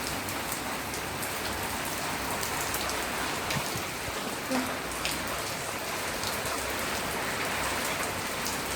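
Steady rain falling, with a dense even hiss and scattered drops ticking on surfaces.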